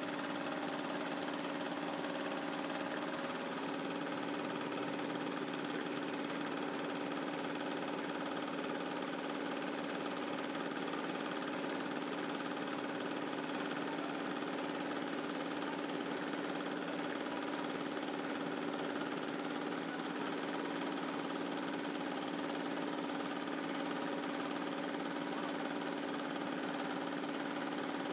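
Small single-cylinder stationary diesel engine running at a steady speed, belt-driving a cast-iron meat mincer as it grinds meat.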